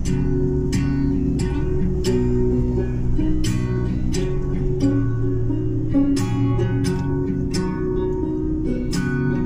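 Background music: strummed acoustic guitar chords, with no singing.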